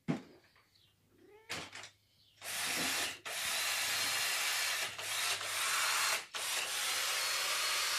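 A cat meows a couple of times in the first two seconds. Then a steady, loud hiss starts and runs on with a few short breaks, from a battery-powered device that the people suspect is running low on charge.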